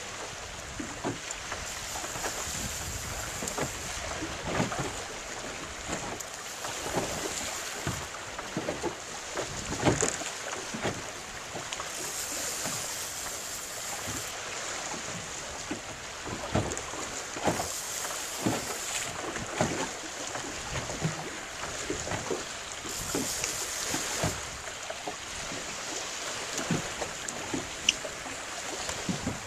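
Choppy water lapping and slapping against a small boat's hull in irregular knocks, with wind buffeting the microphone.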